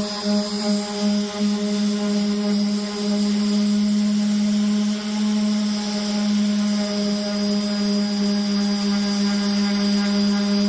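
Electric sander running steadily on the car's body panels, a constant motor hum over the hiss of the abrasive.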